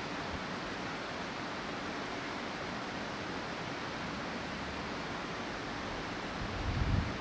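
Steady rushing background noise with no distinct events; a low rumble swells briefly near the end.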